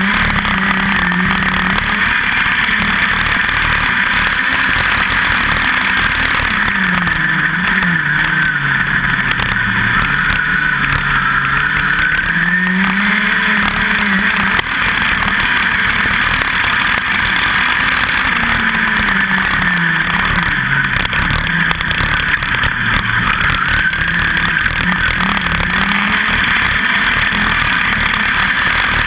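USAC midget race car engine at racing speed, heard on board the car, its pitch falling and rising several times as it goes round the dirt oval.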